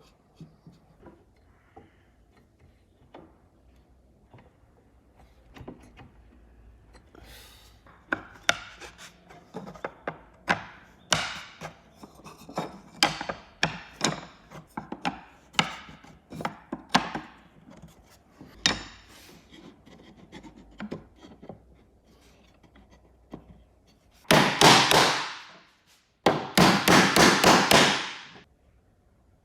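Hand tools working wood: a run of sharp knocks on wood, about two a second, as from a mallet striking a chisel or a joint. Near the end comes a few seconds of rasping strokes on wood.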